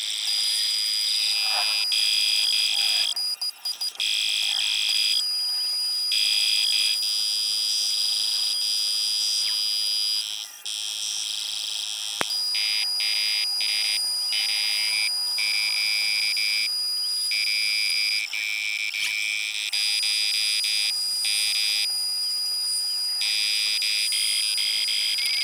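Bench metal lathe turning the outside of a Peugeot 103 cylinder head, played sped up, so the motor and cutting sound comes through as a high-pitched whine with steady tones. It is chopped into short segments that change abruptly every second or two, with one sharp click about halfway.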